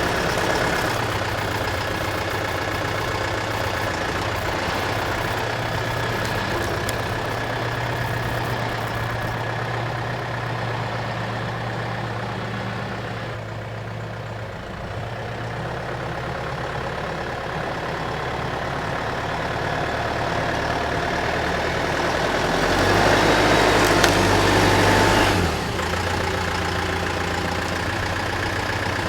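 Skid steer loader's engine running steadily, then growing louder for a couple of seconds near the end as it works harder before dropping back suddenly.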